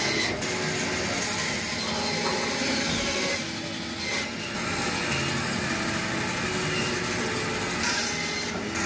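Butcher's band saw running, its blade cutting through raw beef leg bones, a steady sawing sound.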